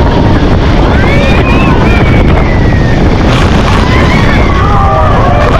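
Loud, steady rushing noise of a motorboat running fast, with wind buffeting the microphone. Passengers' voices cry out over it in rising and falling calls.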